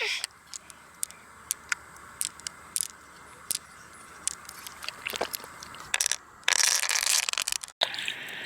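Hard shells being handled and pried open: irregular sharp clicks and scrapes, then a dense rush of scraping about six and a half seconds in that stops abruptly a second later, followed by a steady hiss.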